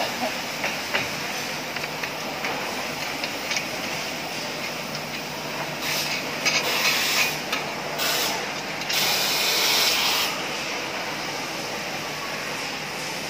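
Steady workshop background noise with a few light clicks near the start as the metal clamp bolts are handled, then three bursts of hissing between about six and ten seconds in.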